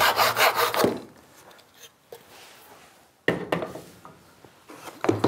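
Hand back saw cutting through a small piece of wood in quick, even strokes, stopping about a second in as the offcut is sawn through. A few sharp wooden knocks follow, around the middle and near the end.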